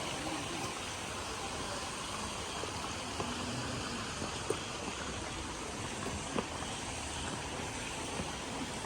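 Steady rushing ambient noise, with a few short sharp clicks about three, four and a half, and six seconds in.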